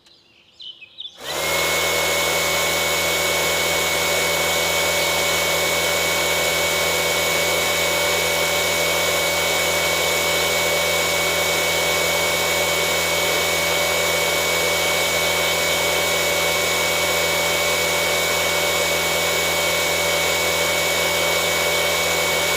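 Small electric motor-driven tool starting up about a second in and then running at a steady, unchanging speed.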